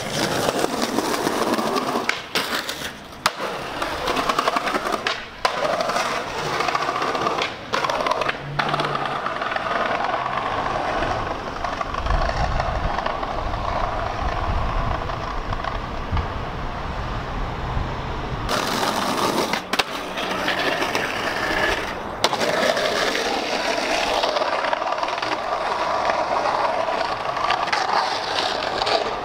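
Skateboard wheels rolling on concrete pavement, a continuous rolling roar broken by several sharp clacks of the board.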